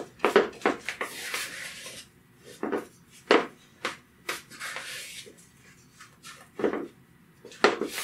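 Wooden spoon tossing flour-dredged beef cubes in a mixing bowl: soft scraping and rubbing of the spoon and meat against the bowl, broken by several sharp knocks of the spoon on the bowl's side.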